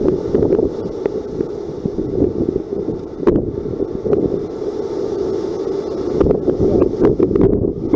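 Hurricane wind buffeting the microphone: a loud, steady rumble with scattered sharp ticks, more of them in the second half.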